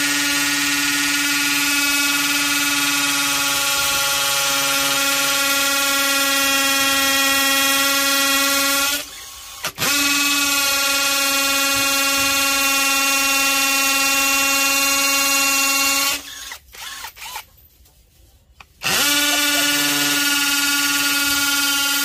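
DeWalt cordless drill running under load, its bit boring into a masonry wall with a steady motor whine. The trigger is let off briefly about nine seconds in and again for a couple of seconds later on, and each time the drill winds back up to speed.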